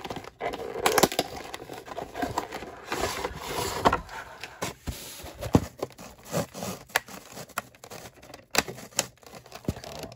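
A cardboard collection box being handled and its clear plastic blister tray worked out of it: irregular clicks, scrapes and crackles of thin plastic against cardboard.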